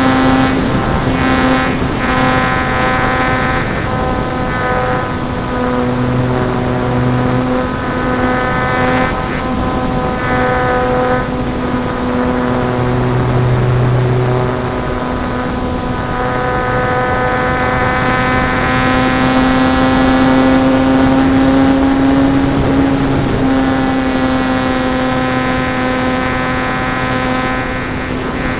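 Electric motor and propeller of a ParkZone Stinson Reliant RC plane in flight, heard close up from a camera mounted on the plane: a steady whine that climbs a little in pitch about two-thirds of the way through, then drops back.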